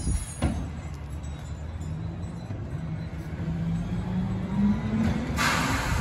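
Rear-loading garbage truck's engine running steadily, then speeding up slightly in pitch about four seconds in. Two sharp clunks right at the start, and a loud hiss near the end.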